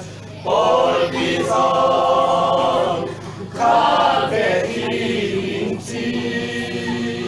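A group of men singing an action song together, unaccompanied, in sustained phrases with short breaks at the start and again a little over three seconds in.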